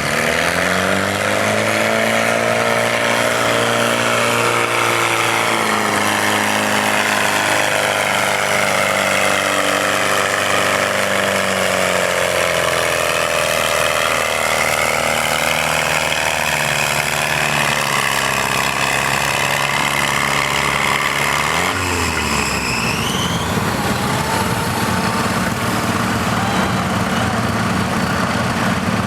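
Farm tractor engine working hard during a sled pull, its pitch sagging slowly as it lugs under load. About three-quarters of the way through, the engine dips briefly and then revs up sharply before running on at a lower, steadier speed.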